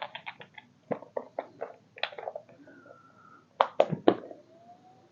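Irregular plastic clicks and taps as the parts of a small toy-sized robot vacuum cleaner are handled and fitted together, with two louder snaps a little past the middle.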